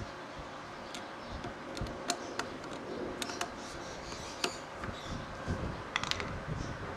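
Scattered small metallic clicks and taps as the parts of a disassembled Aisan carburetor are handled, over a steady background hiss.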